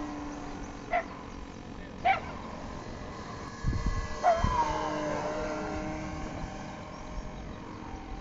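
Steady whine of an electric RC model airplane's motor, with a falling glide about four seconds in, over which come three short, sharp yelping calls about a second apart, like a dog's. A few low thumps sit in the middle.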